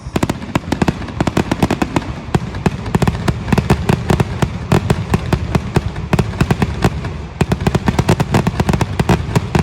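Aerial fireworks display bursting in a dense, rapid barrage: many overlapping bangs and crackles several times a second over a continuous low rumble.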